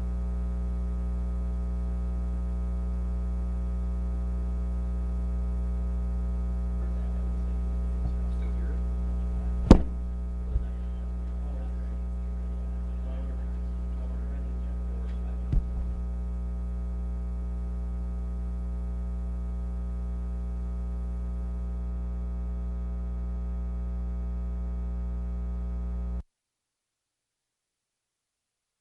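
Steady electrical mains hum with a buzzy stack of overtones, broken by a few sharp clicks around the middle; the sound cuts out abruptly near the end.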